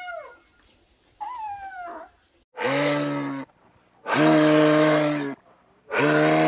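A kitten mewing twice, two short calls that rise and fall in pitch. Then three long, low, steady animal calls of about a second each, with short gaps between them, much louder than the mews.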